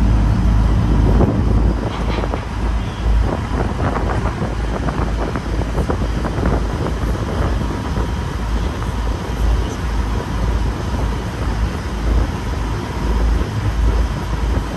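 Wind buffeting the camera microphone on a moving river tour boat: a heavy, uneven low rumble over a steady rush of noise.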